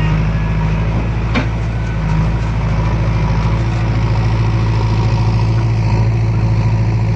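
Diesel engine of a JCB 3DX backhoe loader running steadily while it works, with a single short knock about a second and a half in.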